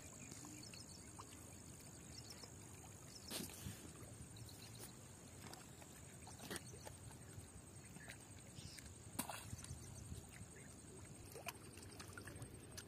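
Faint outdoor background with a steady high-pitched whine that stops near the end, and about four sharp clicks or knocks scattered a few seconds apart.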